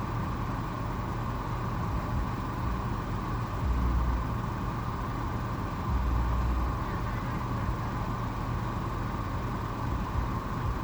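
Car engine idling: a steady low hum heard from inside the cabin while the car waits in a drive-thru line.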